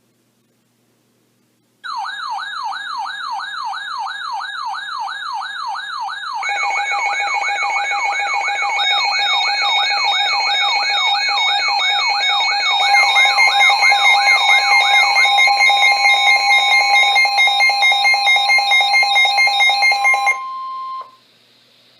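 Weather radio alert alarms sounding for an incoming severe thunderstorm warning. A warbling siren starts about two seconds in; steady tones join it, then fast beeping, then a steady high tone, building into a layered, loud alarm. It all cuts off together near the end, with one tone ringing on a second longer.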